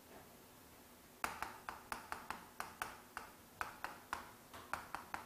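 Chalk tapping and scratching on a chalkboard as a line of characters is written: a quick run of sharp taps, about four a second, starting a second in, some with a short scrape after.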